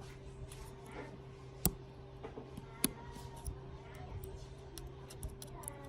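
Scattered light clicks and taps of small parts being handled, with two sharper clicks about a second apart, over a steady low hum.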